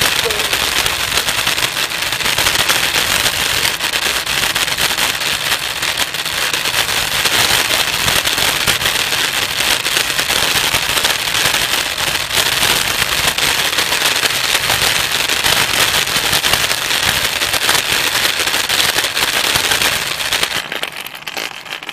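Small hard wheels of a kick scooter rolling fast over asphalt: a dense, steady crackling rattle. It fades near the end.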